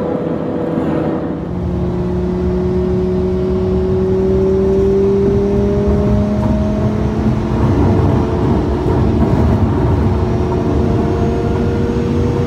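Twin-turbocharged 5.2-litre V10 of a Lamborghini Huracan LP610-4 heard from inside the cabin under way, its note rising slowly as the car accelerates, over steady road noise.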